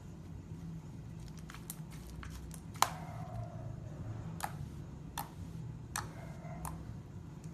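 Slime being squeezed and poked, giving a quick run of small clicking pops, one much louder pop near three seconds in, then single pops about every 0.7 seconds, over a low steady hum.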